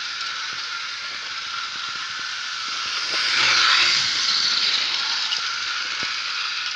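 Model train running on sectional track, its wheels and electric motor making a steady rattling whirr that swells as it passes close by about three and a half seconds in.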